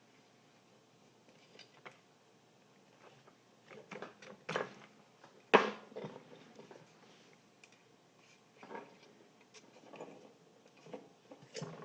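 Hand-tool and parts handling noise during a loudspeaker foam-surround repair: scattered light taps, knocks and scrapes. The loudest is a sharp knock about five and a half seconds in.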